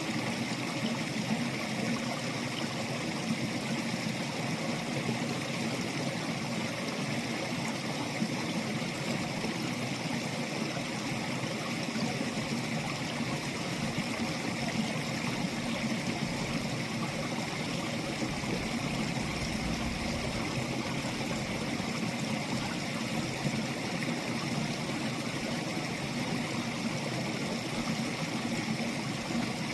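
Water in a stream running steadily, an even, unbroken rush.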